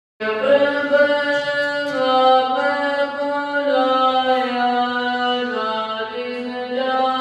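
Sikh devotional chanting, a voice singing long held notes that step slowly from one pitch to the next. It cuts in suddenly from total silence.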